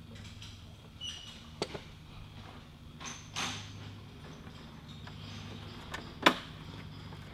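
Hands fitting blue polyester rope into a hard plastic rope-ladder step clamp: small scattered clicks and a brief rustle of plastic parts and rope being handled, the sharpest click about six seconds in, over a steady low hum.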